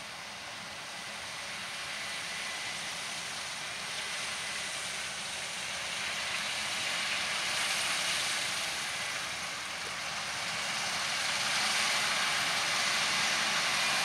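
Claas Lexion 7500 combine harvester running while cutting and threshing oilseed rape: a steady rushing mechanical noise that grows louder as the machine draws near, dips briefly, then swells again toward the end.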